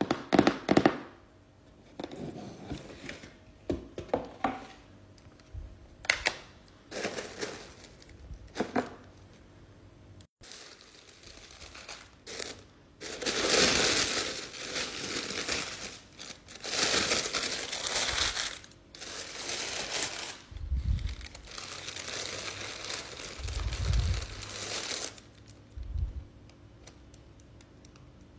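Cardboard shoe box handled and opened, with scattered taps and scrapes, then white tissue paper rustling and crinkling loudly for several seconds as it is unfolded. A few dull low thumps come near the end.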